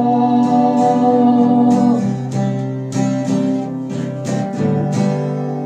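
Acoustic guitar strumming the closing chords of a song, about two strokes a second. It fades out from about halfway, the last chord left ringing.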